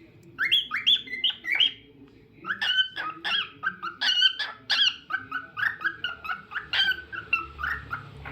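Cockatiel warbling: a quick run of short chirps and whistled notes, with a brief pause about two seconds in.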